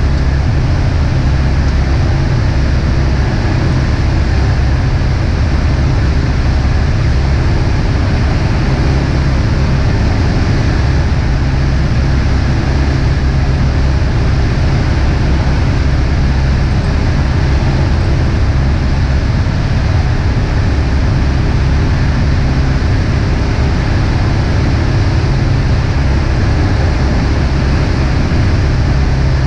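Beechcraft Musketeer's piston engine and propeller running steadily in flight, heard inside the cabin as a loud, constant low hum with rushing noise over it.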